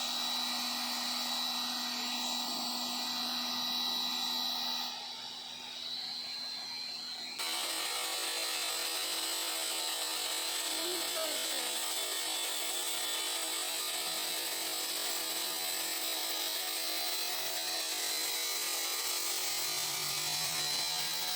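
ResQtech 1700 W electric high-pressure washer running: a steady hiss with a high whine and a low motor hum. About five seconds in it drops in level for a couple of seconds, then comes back at full level with a slightly higher hum.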